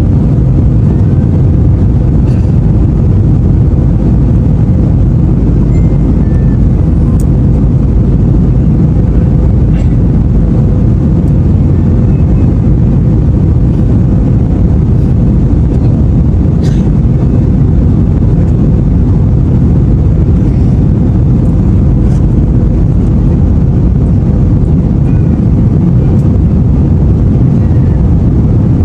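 Steady, loud rumble of a jet airliner's engines and rushing air heard inside the cabin, with a faint steady hum through it and a few faint clicks.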